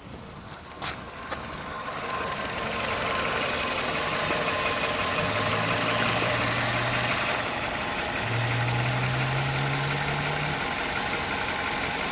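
Car engine idling steadily. It gets louder about two seconds in, after two short clicks.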